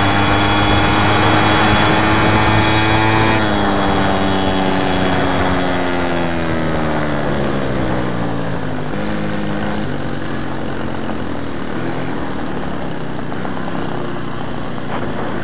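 A VeloSolex moped's small two-stroke engine running at a steady buzz, then dropping in pitch over several seconds as the moped slows down.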